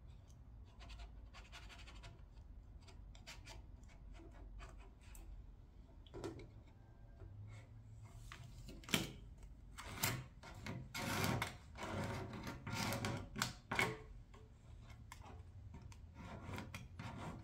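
Fingers rubbing a vinyl decal and its paper transfer tape down onto a painted truck tailgate: a string of short rasping rubs, loudest in the middle, after a single click, over a faint low hum.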